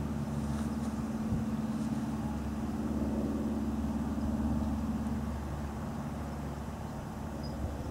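An engine idling steadily with a low hum. Its higher tone drops away about five seconds in.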